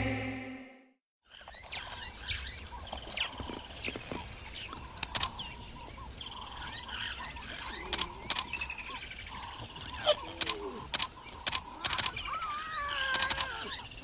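The tail of intro music fades out into a second of silence. Then comes bush ambience: a steady high-pitched insect drone, scattered bird calls, and frequent sharp clicks.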